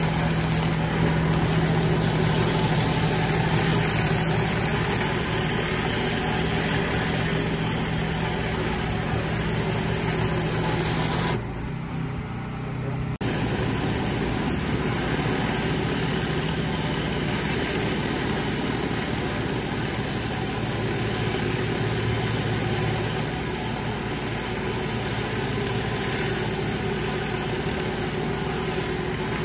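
Pressure washer running steadily while a flat surface cleaner is pushed over wet stone paving, its spray giving a continuous rushing noise over a low engine hum. The noise drops for about two seconds near the middle, then carries on.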